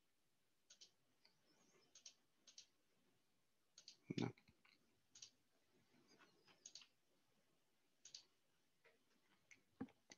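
Faint, scattered clicks of a computer mouse, about a dozen, irregularly spaced, with one louder low thump about four seconds in.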